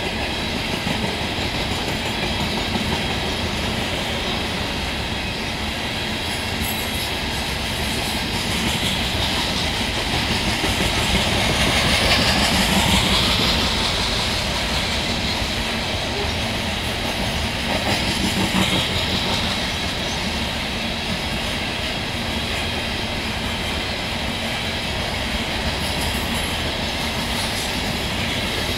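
CSX coal train's hopper cars rolling past: a steady rumble and clickety-clack of steel wheels on the rail. The noise grows louder and brighter for a few seconds about twelve seconds in, with a shorter swell a few seconds later.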